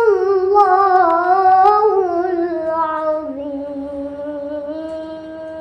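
A boy reciting the Quran in the melodic tilawah style: one long drawn-out phrase in a high child's voice, its pitch wavering in ornaments and slowly sinking, then held steady from about three seconds in.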